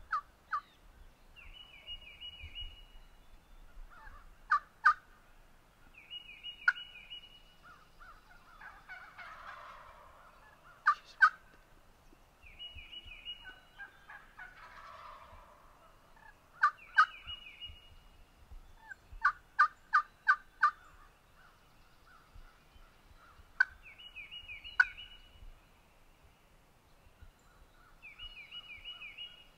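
Wild turkey gobbler gobbling six times, each a quick rattling call, every four to six seconds. Between the gobbles come louder, short yelps, singly, in pairs and once in a run of five.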